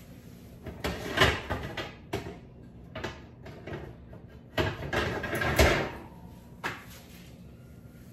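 Metal sheet pans clattering and scraping as they are slid onto wire oven racks: a string of knocks and scrapes, loudest a little over five seconds in.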